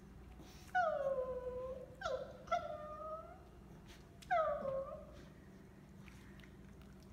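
Squeaker inside a plush dog toy squeaking as a Maltese bites down on it: four drawn-out squeaks, each sliding down in pitch, the first and longest about a second in, two close together around two and a half seconds, and the last past four seconds.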